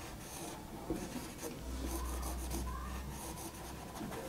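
Whiteboard marker rubbing across a whiteboard in short drawing strokes.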